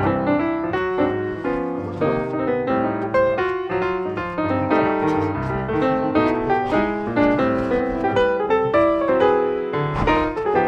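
Background music led by piano: a stream of quick notes over a bass line.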